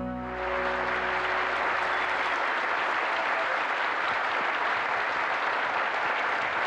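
Audience applauding steadily at the end of a country song, with the band's last held chord dying away in the first second or so.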